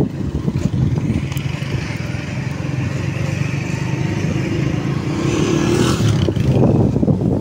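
Motorcycle engine running steadily while riding, its pitch rising around five seconds in as it speeds up.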